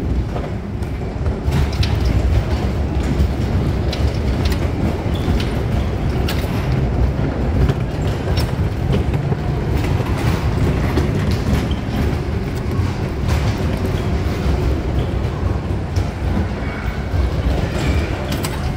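Bumper cars running over a metal-plated floor: a steady, loud rumble of wheels on the plates, with occasional sharp clicks and knocks.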